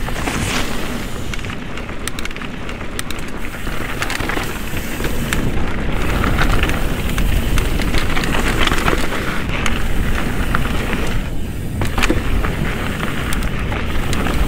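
Mountain bike ridden fast down a dirt trail: tyres crunching over dirt and loose rock, with frequent clicks and knocks from the bike over bumps. Steady wind rumble on the microphone.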